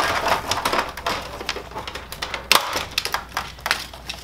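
Plastic top cover of a Kyocera FS-4200/4300 laser printer being popped loose and handled: a run of sharp plastic clicks and knocks, the sharpest about two and a half seconds in and a cluster near the end.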